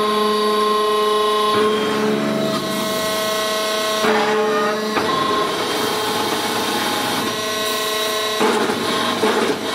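Hydraulic brick-making press running: a steady hum with several tones from its hydraulic power unit, shifting in tone every few seconds as the press moves through its cycle, with the ram lifting from the mould and the feed box sliding in.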